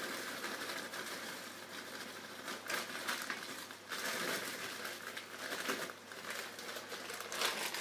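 Plastic freezer bag of frozen vegetables crinkling and rustling as it is handled and opened, with a few short crackles.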